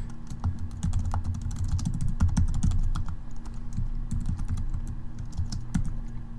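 Computer keyboard typing: keys clicking in quick, irregular succession over a steady low hum.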